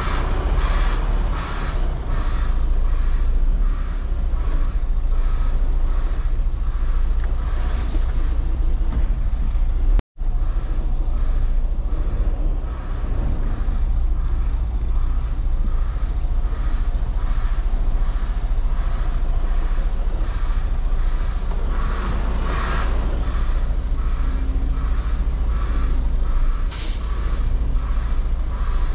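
Semi-truck diesel engine running steadily while the rig manoeuvres back toward a loading dock, with a regular beeping throughout. There are short hisses of air brakes, the sharpest near the end. The sound cuts out for an instant about ten seconds in.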